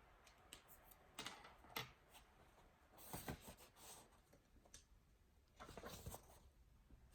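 Near silence in a small room, broken by a few faint taps and rustles, like typing or handling things at a desk.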